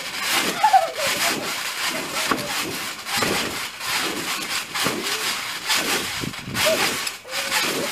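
Masses of Orbeez water beads rustling and scattering across a trampoline mat as children bounce on them, a rasping swish with each landing repeating irregularly about twice a second.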